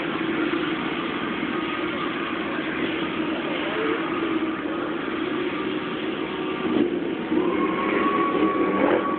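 Ducati Monster's V-twin engine running at steady revs while it is held up in a wheelie. It gets louder about seven seconds in, and a thin high tone joins it near the end.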